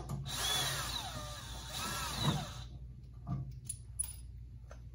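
Cordless drill driving a 12 mm socket to back out a bolt on a tractor's transmission, running for about two and a half seconds with a wavering whine, followed by a few light clicks.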